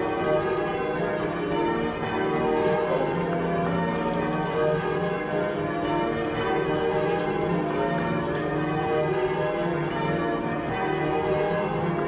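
Bells ringing continuously, their strikes overlapping into a steady, many-toned ringing.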